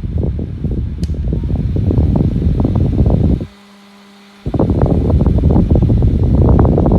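Mini USB desk fan running, its airflow buffeting the microphone with a gusty rush. About halfway through the rush cuts out for about a second, leaving only a faint hum, then comes back slightly louder.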